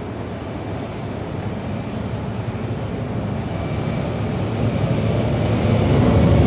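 Aircraft engine drone, low and rumbling, growing steadily louder as it approaches on a low fly-by.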